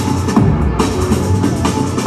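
Recorded dance music with a steady drum beat, played loud over a hall's speakers.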